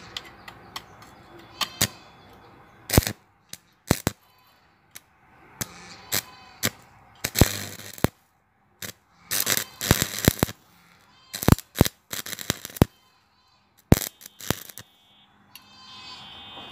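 Stick-welding arc on thin square steel tubing: sharp, irregular crackles and pops in short clusters as the electrode is struck and the arc runs, with quiet gaps between the bursts.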